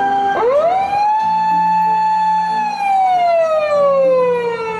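Japanese ambulance's electronic siren wailing. The tone sweeps up about half a second in, holds high, slides slowly down over the next few seconds, and starts climbing again at the end.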